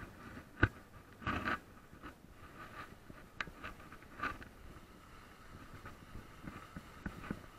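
Mountain bike rolling over a leaf-covered dirt track: tyres crackling over dry leaves and gravel, with scattered rattles and sharp knocks over bumps, the loudest a single knock about half a second in.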